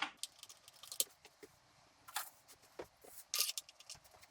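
Irregular light clicks and clinks of the intake manifold's steel bolts and washers being handled and set in place, with a few sharper ticks among them.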